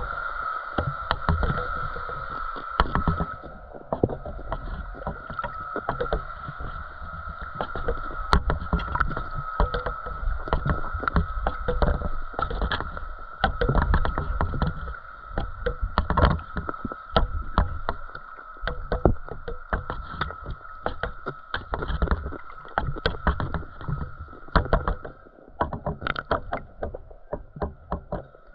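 Underwater audio picked up by a GoPro in its waterproof housing: muffled water sloshing with many irregular sharp clicks and knocks, over a steady high hum.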